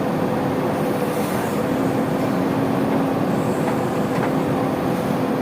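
Heavy diesel engine running steadily under load, a continuous drone with a low held hum.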